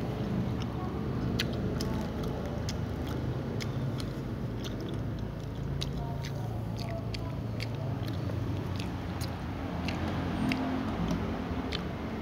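A cat chewing crisp fried cassava: a run of sharp, irregular crunches over a steady low hum.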